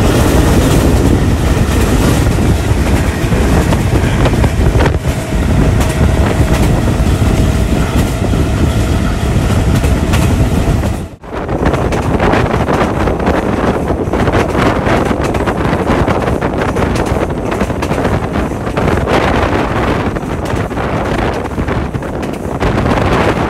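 Passenger train running at speed, heard from beside the carriage: a steady rumble of wheels on the rails mixed with wind rushing over the microphone. The sound cuts out for a moment about eleven seconds in, then carries on.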